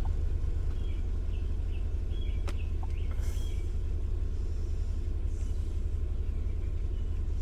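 Car engine idling with a steady low rumble, with a few faint short high-pitched tones in the first few seconds and a single sharp click about two and a half seconds in.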